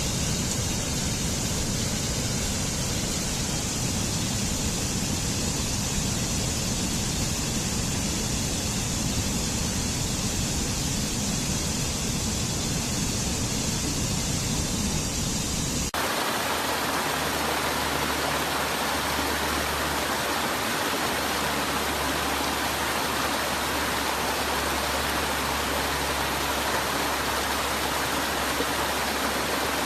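Steady rushing noise of falling water. About halfway through it changes abruptly to a fuller, broader rush where one recording cuts to another.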